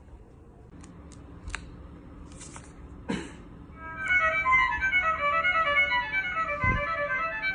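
A few clicks and a thump. About four seconds in, a quick violin tune starts playing from a children's musical sound book.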